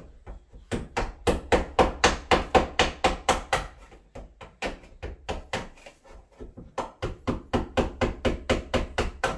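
Claw hammer striking the timber and metal framing inside an opening in a drywall wall, knocking it flat so the patch will sit flush. Quick strikes at about four a second in two runs, with a short pause in the middle.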